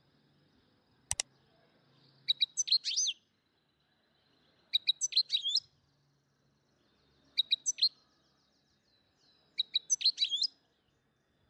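A bird chirping: four similar phrases of a few quick high notes ending in sliding whistles, each about a second long and spaced roughly two and a half seconds apart. A single sharp click comes about a second in.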